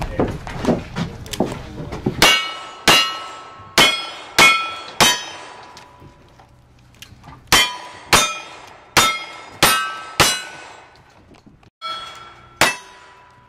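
Revolver shots, each answered by the metallic ring of a struck steel target, in quick strings: five shots about half a second apart, a pause of about two seconds, five or six more, then two near the end. The first two seconds hold a clatter of knocks.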